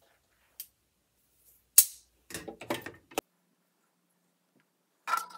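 A few short clicks and rustles from hands and hair being handled close to the microphone. The loudest is a sharp knock just under two seconds in, followed by a burst of rustling that ends in a click.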